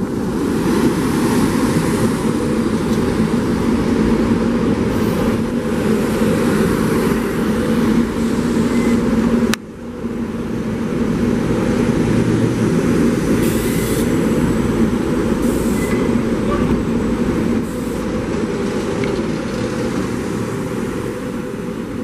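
SEPTA Silverliner IV electric multiple-unit commuter train running past at close range: a steady rumble of wheels on rail with a steady hum from the train. The sound breaks off abruptly about halfway through and picks up again.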